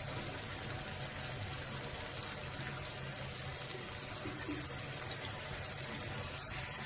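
Hot oil and tomato masala sizzling steadily in a kadhai as raw chicken pieces are dropped into it to fry.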